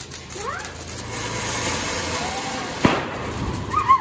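Ground fountain firework (flowerpot) hissing steadily as it sprays sparks, with one sharp pop about three seconds in. Short high-pitched cries rise near the start and near the end.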